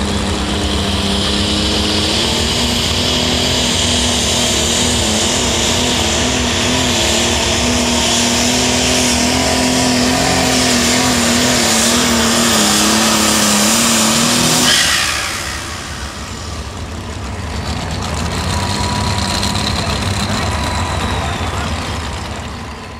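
International super stock pulling tractor's engine at full throttle dragging the weight sled, loud and steady for about fifteen seconds, then cut off suddenly at the end of the pull. It drops back to a lower running sound with a thin high whine, then fades near the end.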